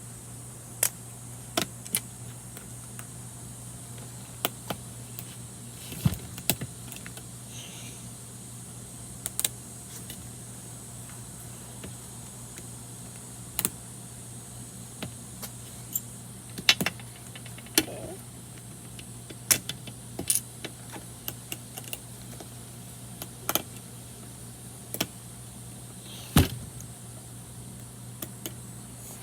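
Irregular sharp plastic clicks and taps from a Rubik's cube being handled and worked on to loosen its too-tight tension, over a steady low hum.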